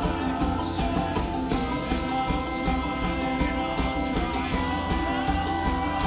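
Live indie rock band playing a song: a steady drum beat under keyboards, bass guitar and guitars.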